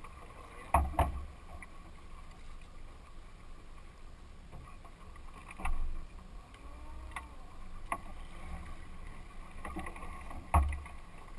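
Small boat at sea with a steady low engine hum, wind and water around the hull. A few dull knocks stand out about a second in, near six seconds and near the end.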